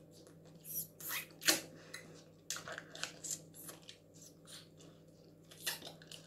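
Quiet, irregular crackles and wet mouth clicks as a fruit jelly is squeezed from its small plastic packet and sucked and chewed.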